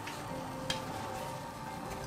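Hot frying oil in a pan sizzling faintly and steadily, with one light utensil click less than a second in.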